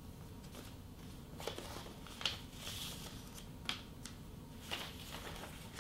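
Faint rustling and crackling of paper: an envelope is handled and a folded letter is taken out and unfolded, in half a dozen short crinkles spread across a few seconds.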